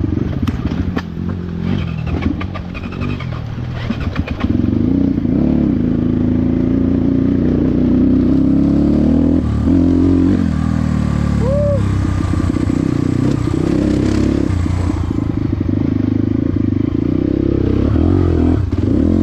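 Motorcycle engine running on the road, its revs rising and falling. It is a little quieter, with scattered clicks and knocks, for the first few seconds, then louder and steadier from about four seconds in.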